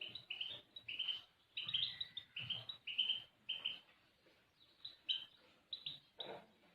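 European goldfinch chirping and twittering: quick runs of short high notes in three bursts, with gaps of about a second between them.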